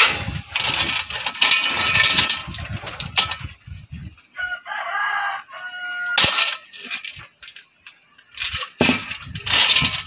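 A rooster crows once, about four seconds in. Around it are bursts of noisy scraping and rattling and a few sharp knocks of a bolo knife on a wooden block as snail shells are chopped.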